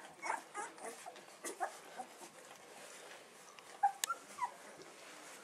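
Two-week-old bullmastiff puppies making short, high-pitched squeaks and cries, many scattered through, some sliding up or down in pitch. There is a sharp click about four seconds in.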